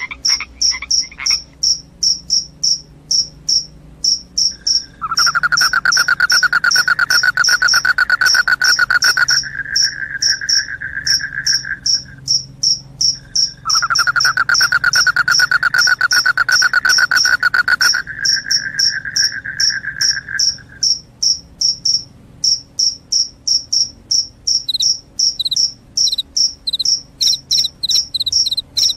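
Crickets chirping in a fast, even rhythm of about three short, high chirps a second, with a second chirping cricket joining near the end. Twice, about five seconds in and again about fourteen seconds in, a lower, louder continuous trill runs for several seconds over them.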